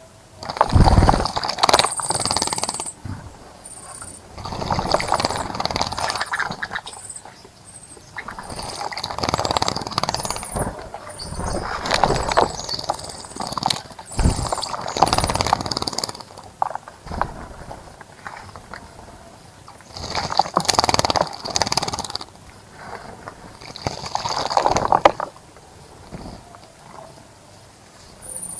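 A bird bathing in a bird bath, splashing water with rapid wing-flicking in about seven separate bouts of a second or two each. Short, thin, high chirps come between the bouts.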